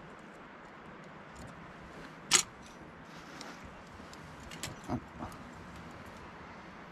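Metal clinks from hand tools working on a John Deere 650J dozer's hydraulic lift cylinder: one sharp, loud clink a little over two seconds in, then a few lighter clicks near five seconds.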